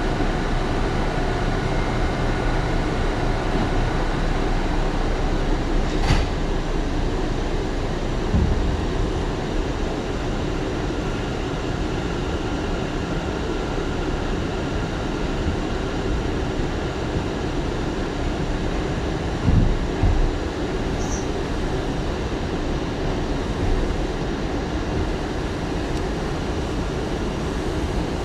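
R179 New York City subway car running along the track: a steady rumble of wheels on rail with a few sharp knocks from rail joints.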